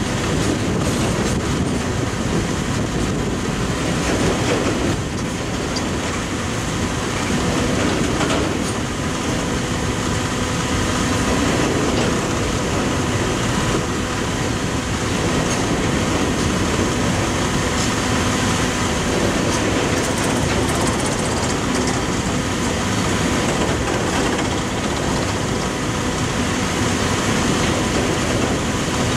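Coal hopper cars of a freight train rolling past at close range: a steady rumble with wheels clicking over the rail joints.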